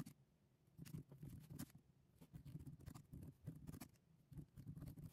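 Typing on a computer keyboard: soft key clicks in short, irregular runs with brief pauses between them.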